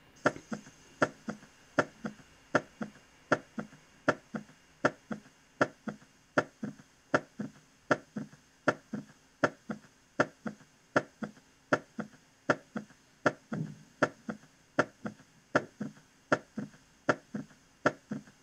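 Auscultated heart sounds with an S3 ventricular gallop: each cycle brings S1 and S2 with an extra sound just after S2, a three-beat rhythm repeating steadily at about 80 beats a minute. S3 usually signals volume overload from a pathologically dilated ventricle, though it can occur in hyperdynamic states.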